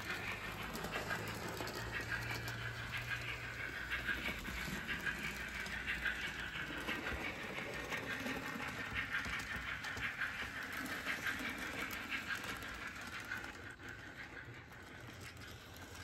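Sound-fitted N gauge model of a Jubilee-class steam locomotive running with its coaches. Its small onboard speaker plays steam engine sound, with faint clicking from the wheels on the model track. The sound fades about three-quarters of the way through as the train moves off.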